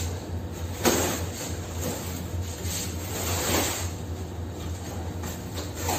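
Cardboard packaging being pulled apart and shifted, rustling and scraping about a second in and again around three and a half seconds, over the steady low hum of the ship's machinery.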